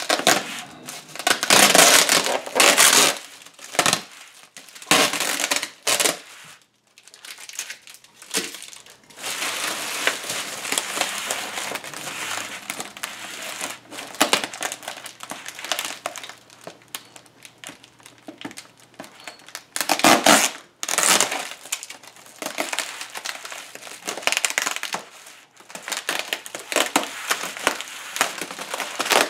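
Plastic bubble wrap crinkling and rustling as it is handled and pulled away from a boxed 3D printer, in irregular bursts, with the loudest bursts about two seconds in and again about two-thirds of the way through.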